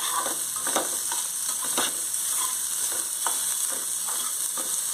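Soaked soya chunks sizzling as they fry in hot oil in a metal pan, with a steady high hiss, while a spatula scrapes and taps the pan now and then as they are stirred.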